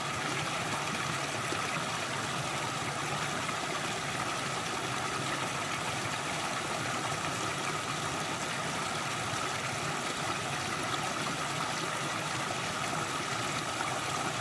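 A small rocky creek running in a little waterfall: steady splashing and rushing of water.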